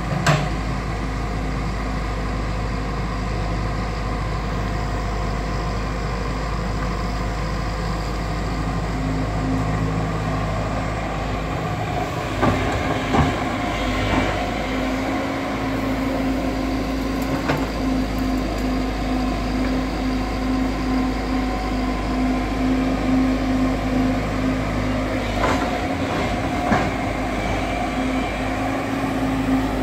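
Excavator's diesel engine running steadily under work, with a handful of short metallic clanks from the digging gear.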